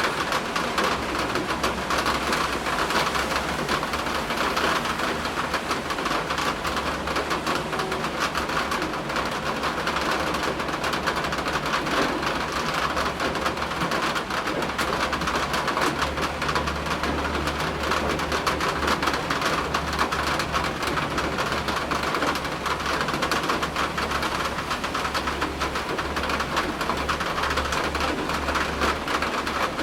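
Steady rain falling in a storm, an even hiss with wind, over a low rumble that grows stronger about halfway through.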